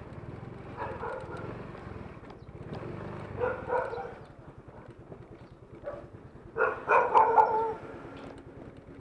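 A dog barking in short bursts, several times, loudest in a cluster of barks about seven seconds in. A small engine idles low underneath.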